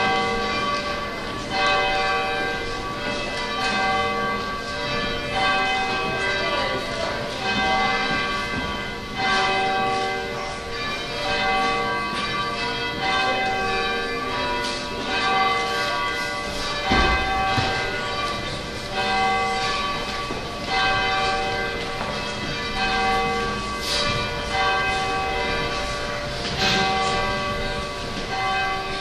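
Slow church organ music: sustained chords whose notes change about once a second. A single low thump sounds about two-thirds of the way through.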